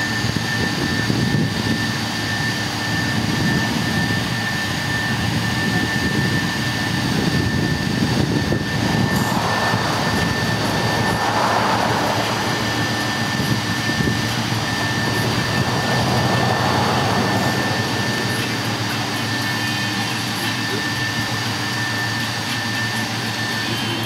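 A steady mechanical drone with a constant high-pitched whine, swelling a little a couple of times midway.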